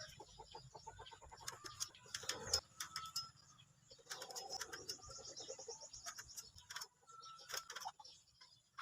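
Faint bird chirps and short trilling calls, with scattered light ticks.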